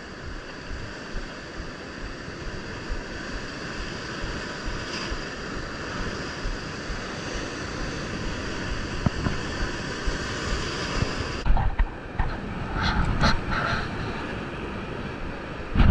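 Surf washing and breaking over shore rocks, with wind buffeting the microphone. Near the end come a few short knocks and clicks of gear being handled.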